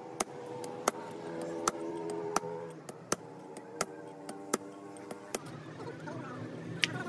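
Hammer striking a steel pipe set over a truck differential pinion shaft, driving a tapered roller bearing onto the shaft. It gives sharp metallic knocks, about one every three-quarters of a second, eight in a row and then one more near the end after a longer pause.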